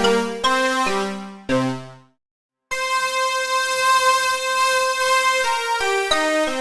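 Roland D-50 software synthesizer playing preset patches: struck keyboard chords that die away over the first two seconds, a short gap, then a bright sustained patch holding a note, with quicker changing notes near the end.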